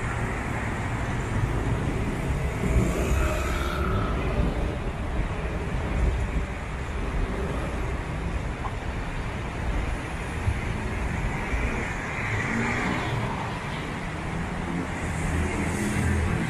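Steady city road traffic: a continuous low hum of cars and other motor vehicles running along a busy street.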